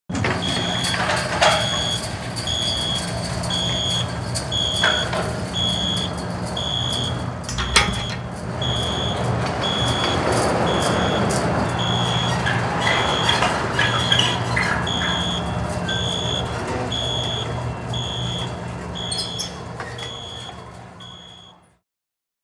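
A high electronic beep repeating about once a second, each beep about half a second long, over a steady low hum and rushing noise. It fades out near the end.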